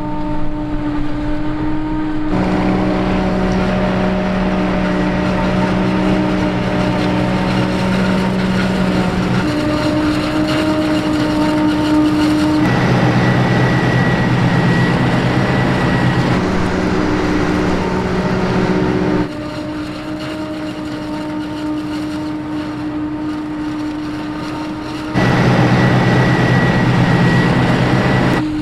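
New Holland FR 8900 self-propelled forage harvester chopping maize and blowing it into a trailer, alongside an MB-trac tractor running. The engines give a steady, heavy drone, and its pitch and loudness jump abruptly a few times; it is quieter for several seconds past the middle.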